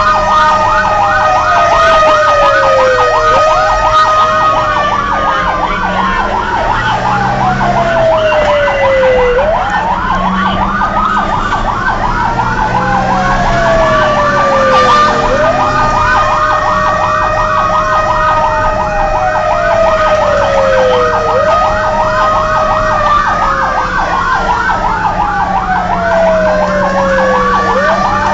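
Fire engine sirens sounding continuously from inside a responding fire truck's cab. A slow wail rises and falls about every six seconds, layered over a rapid yelp and a steady tone, with the truck's engine running underneath.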